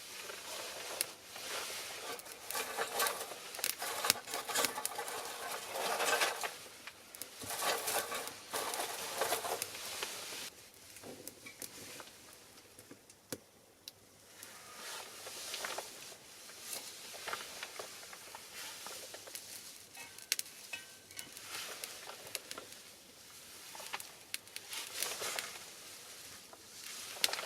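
Small fire of pine cones and cherry branches crackling and popping, with surges of rushing hiss as the flames flare up every second or two, quieter for a few seconds near the middle.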